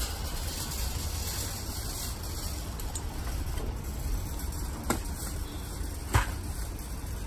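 Steady low outdoor rumble, with two short knocks about five and six seconds in, the second the louder, as goods are packed into an SUV's open cargo area.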